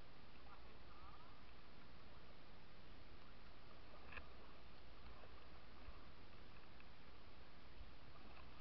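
Steady hiss and low rumble of wind and river water on a kayak-mounted camera, with one sharp click about four seconds in.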